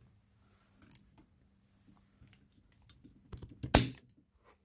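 Scattered light clicks and taps of handling, then a sharp knock about three-quarters of the way through as the phone that is filming is picked up and moved.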